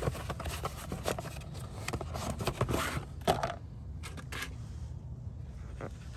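A cardboard oil-filter box being opened and handled, its flaps scraping and rustling as the pleated paper filter cartridge is slid out, with handling clicks. The scraping fades about three and a half seconds in, leaving a few isolated taps.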